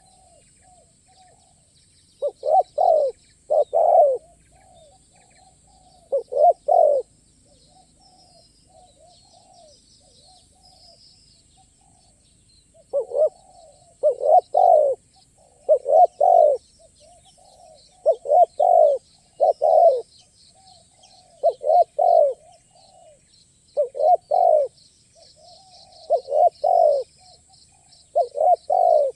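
Spotted dove cooing: loud phrases of two or three deep coos repeat every couple of seconds from about two seconds in, with softer coos between them. Faint small-bird chirps and a steady high hiss lie behind.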